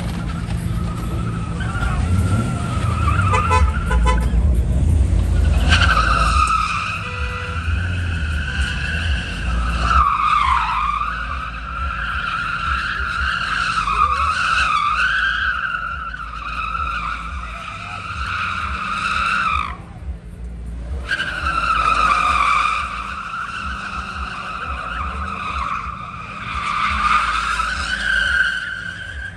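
A car drifting, its tyres squealing in long wavering skids over the low rumble of the engine. The squeal starts about six seconds in, breaks off for about a second around twenty seconds in, then picks up again.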